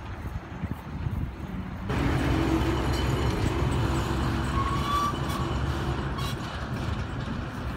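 Wind on the microphone, then from about two seconds in a louder, steady low rumble and hum of road traffic: a truck's engine running.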